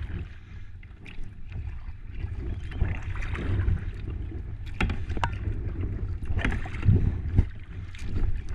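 Kayak paddle strokes dipping and splashing through the water, a swell of splashing every few seconds, with a steady wind rumble on the microphone and a few sharp knocks.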